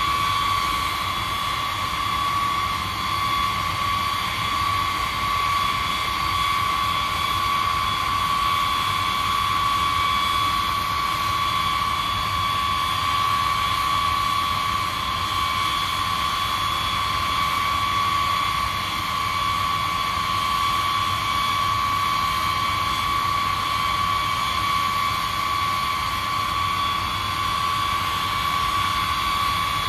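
B-52 bomber's eight TF33 turbofan jet engines running with a steady high whine over a rushing roar.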